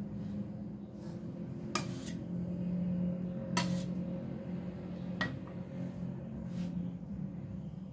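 Metal icing spatula clinking and scraping against a stainless steel bowl as buttercream is wiped off the blade: a handful of sharp metallic clinks spread over several seconds, two in quick succession near the start, over a steady low hum.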